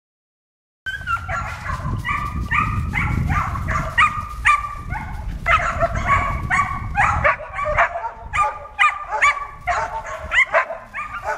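Four-month-old Samoyed puppy barking and yipping, quick repeated high-pitched calls several a second, starting about a second in.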